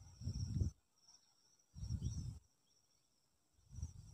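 Faint background sound: a steady high-pitched insect trill, with four short, soft low rumbles about a second and a half apart.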